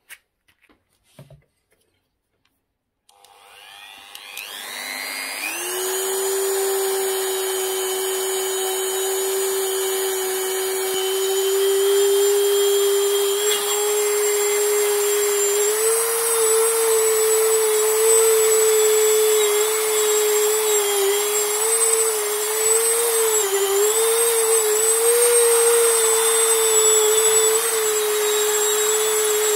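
Dremel rotary tool switched on about three seconds in, rising in pitch to a steady high whine. In the second half it works against the metal EGR valve body, its pitch dipping and wavering as the load comes and goes.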